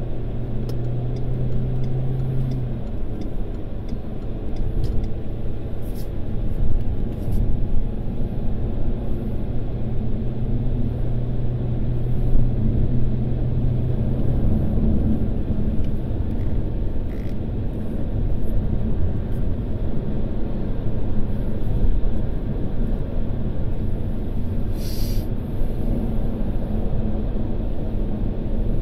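Steady drone of a car driving at speed, heard from inside the cabin: low tyre rumble and engine noise. A low hum in the drone drops away about halfway through, and a brief sharp sound comes near the end.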